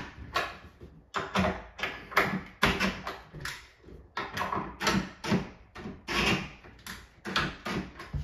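Irregular sharp knocks and clicks, about two or three a second, from work on an upper kitchen cabinet door and its hinge as a binding door is adjusted.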